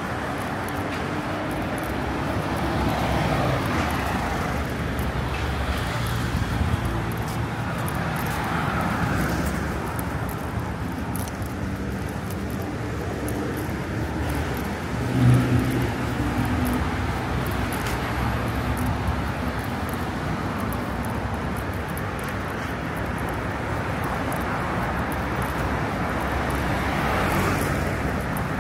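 Steady road traffic on a busy city road: engines and tyres of vehicles passing, with one vehicle's engine briefly louder about halfway through.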